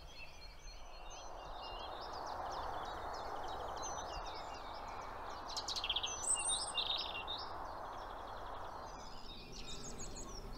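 A dawn chorus of many small birds singing and calling at once, with the busiest burst of trills and chirps around the middle. Beneath it, the rushing hum of distant road traffic swells over the first couple of seconds and fades away near the end.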